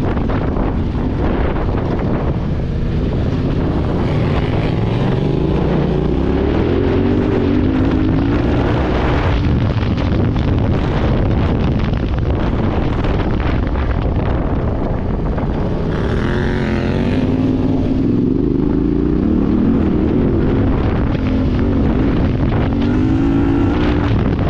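Yamaha Ténéré 700's parallel-twin engine under way, its revs climbing and dropping several times as the bike accelerates and shifts, with heavy wind buffeting on the microphone.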